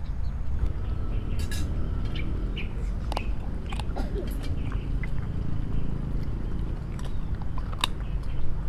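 A dog eating rice from a bowl: chewing, with scattered small clicks, over a steady low rumble.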